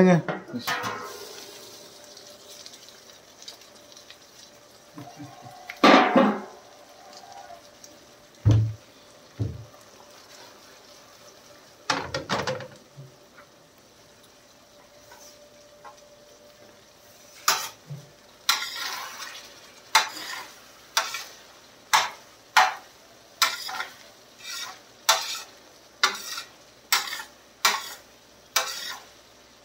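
A metal spatula scrapes and knocks against a large steel tawa as fish pieces in simmering gravy are stirred. The strokes come in a quick, steady rhythm through the second half. Before that there are a few separate metal clanks and thumps.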